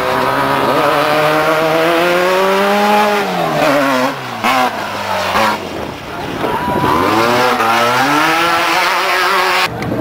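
Off-road race vehicle engine running hard at high revs as it passes. The pitch drops about three seconds in, then another run climbs in pitch near the end and cuts off suddenly.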